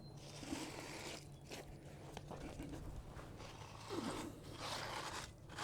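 Wet concrete being scraped and worked with a hand tool: several rasping strokes, one after another.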